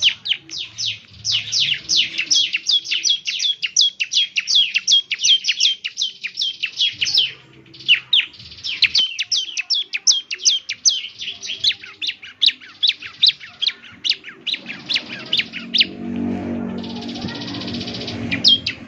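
Bar-winged prinia (ciblek) singing: long, fast runs of sharp downward-sweeping chips, about five a second, with a brief break about seven and a half seconds in. Near the end the song gives way to a couple of seconds of noisy hiss and low rumble.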